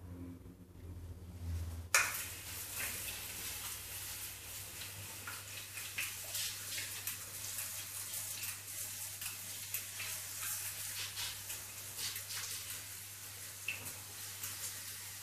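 Hand-pump pressure sprayer misting water: about two seconds in the spray starts sharply, then a steady fine hiss of mist runs on, dotted with small ticks and spatters.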